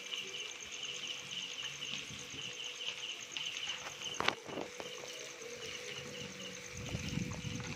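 Crickets chirping steadily in rapid pulses, with one sharp metal click about four seconds in, as of the spatula knocking the kadai, and a low rumble near the end.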